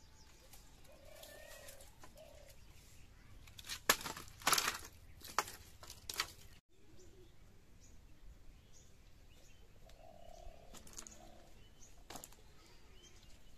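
Dry firewood sticks knocking and clattering against each other as they are pulled from a pile and set down, in a run of sharp cracks about four to six seconds in, with a few lighter knocks later.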